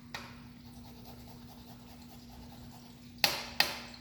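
Two sharp knocks about a third of a second apart near the end, a kitchen utensil knocking against a container as fresh ginger is measured into the sauce, over a steady low hum and faint hiss.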